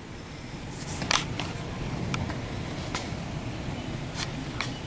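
Hurricane wind rumbling and rain beating against a window glass, heard from indoors, with scattered sharp taps.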